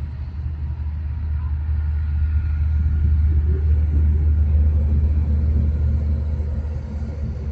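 Steady low rumble aboard a boat, from its engine and wind on the microphone, swelling louder in the middle and then easing.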